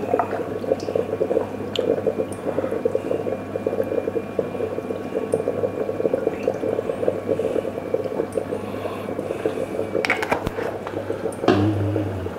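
Olive oil being poured in a steady stream into a frying pan, running evenly for about ten seconds. A few knocks follow near the end.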